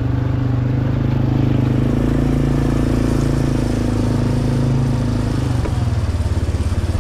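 ATV (quad bike) engine running at a steady throttle, its note holding nearly level throughout, as the quad rolls along.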